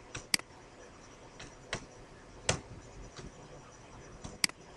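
Computer mouse clicking: about four short, sharp clicks spread a second or so apart, the first and last loudest, against a quiet room.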